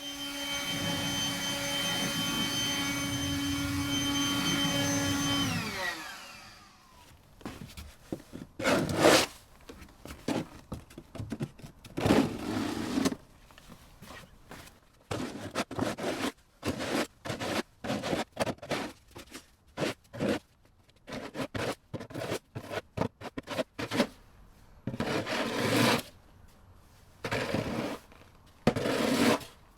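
A motor running with a steady whine, then winding down in pitch and stopping about six seconds in. After that come irregular scraping strokes, like a snow shovel scraping over snow.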